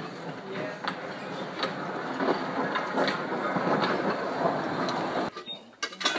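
Small narrow-gauge steam locomotive running slowly past, a dense clanking and hissing with a regular knock about every two-thirds of a second. The sound cuts off suddenly about five seconds in, and a single sharp click follows near the end.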